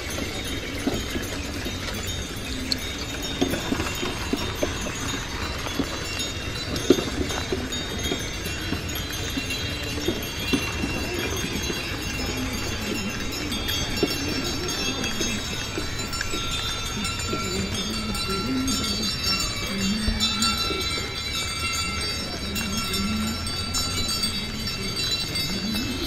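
Bullock-cart procession passing: bells on the bullocks jingle steadily, with scattered clops of hooves and the low rumble of cart wheels rolling on the road.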